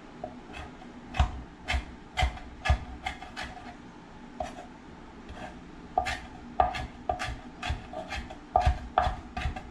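Kitchen knife chopping fresh cilantro on a wooden cutting board: sharp knocks of the blade on the board, about two a second, with a short lull in the middle.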